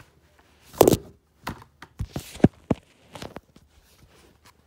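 Airsoft rifle being cocked by hand: a run of sharp clacks and knocks from its mechanism and body being worked, loudest about a second in and again about two and a half seconds in.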